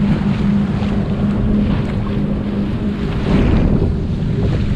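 Wind buffeting the microphone and water rushing past the hull of a small sailboat under way, with the steady low hum of the boat's motor while motor sailing, which fades about halfway through.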